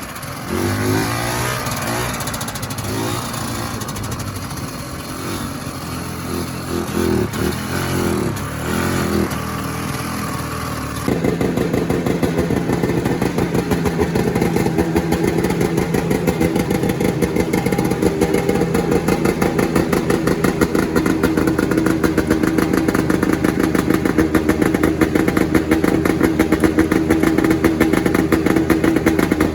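Vintage snowmobile's two-stroke engine running, its pitch rising and falling with the throttle. About a third of the way in the sound changes abruptly to a louder, steady, fast-pulsing run.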